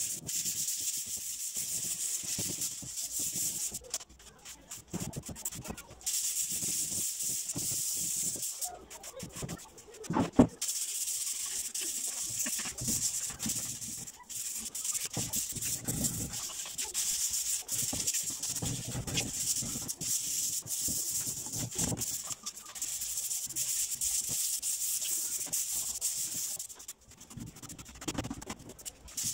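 Sandpaper rubbing by hand on the soundbar's MDF cabinet: long stretches of scratchy back-and-forth strokes broken by short pauses, with a single sharp knock about ten seconds in.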